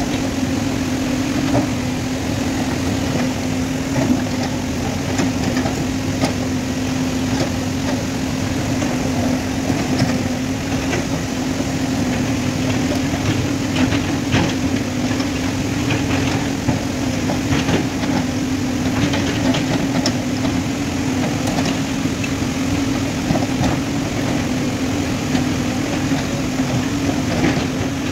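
JCB 3DX backhoe loader's diesel engine running at a steady pitch while the backhoe digs into landslide rubble, with knocks and clatter of rocks against the bucket now and then.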